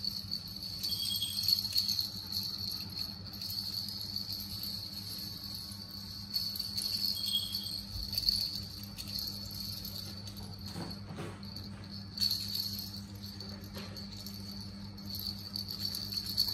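Insects chirring in a steady high-pitched drone that swells and fades a little, with a couple of soft knocks about two-thirds of the way through.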